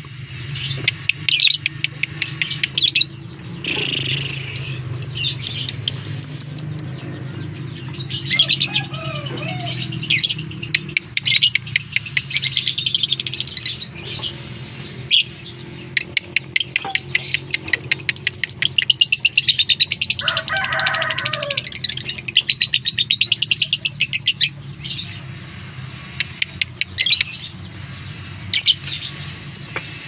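Fischer's lovebirds chattering in long runs of rapid, high chirps, with short pauses between runs. A lower warbling call comes in twice.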